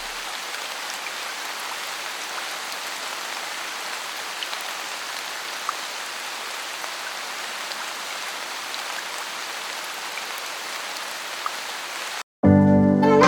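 Steady rain falling, with a few single drops ticking louder. About twelve seconds in it cuts off abruptly and music begins.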